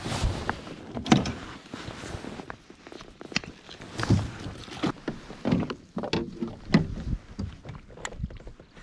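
Gear being handled in a plastic fishing kayak: rustling with irregular knocks and clunks against the hull and fittings, the loudest about a second in.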